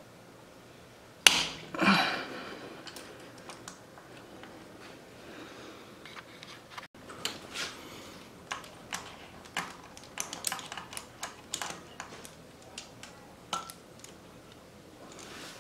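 Metal hand tools on a motorcycle engine: a socket wrench on an extension worked on a nut beside the cylinder, giving irregular metallic clicks and clinks, with two sharp knocks about a second and two seconds in.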